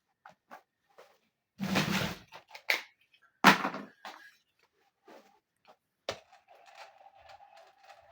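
Small plastic toy pieces and packaging being handled: light clicks and taps, a brief scraping rustle about two seconds in, a sharp knock about three and a half seconds in, then a steady squeaky rubbing near the end.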